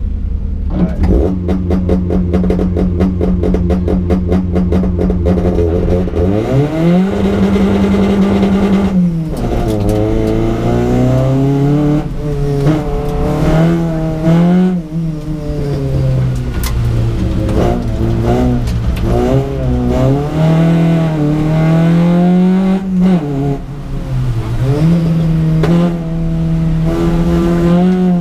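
Rally car engine heard from inside the cockpit, held at steady revs with a rapid stutter, then the car launches about six seconds in. The engine note rises sharply, then climbs and drops again and again through gear changes as the car is driven hard.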